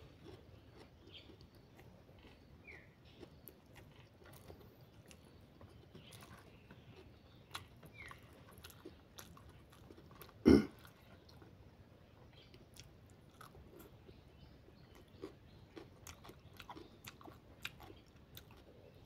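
Close-miked chewing and mouth sounds of someone eating rice and egg curry by hand, soft wet smacks and small clicks scattered through. One brief, much louder noise about halfway through.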